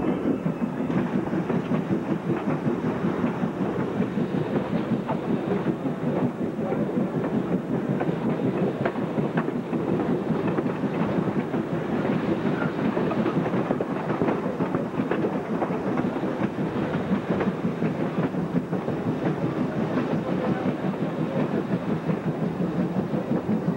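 Train running steadily: a continuous rumble with rapid clicking of steel wheels on rail.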